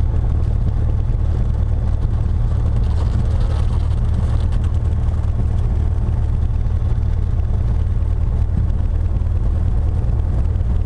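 Cessna T-41's 210 hp Continental IO-360 flat-six and constant-speed propeller running steadily at low taxi power, heard inside the cabin as a steady low drone.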